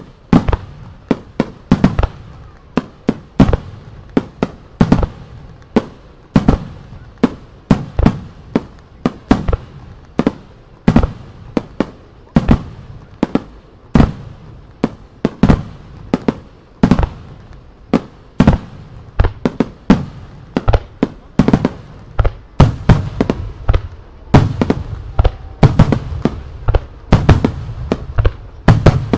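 Japanese starmine fireworks barrage: aerial shells bursting in rapid succession, often two or three sharp bangs a second, each trailing off in a rumbling echo.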